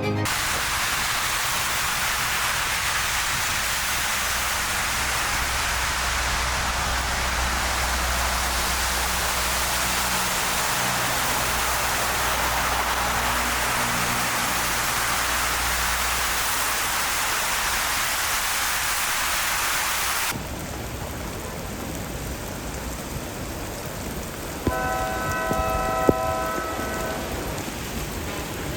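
Heavy rain pouring down in a dense, steady hiss with a low rumble underneath. About twenty seconds in it cuts to a quieter stretch of rain, and near the end there is a brief steady pitched tone and a couple of sharp clicks.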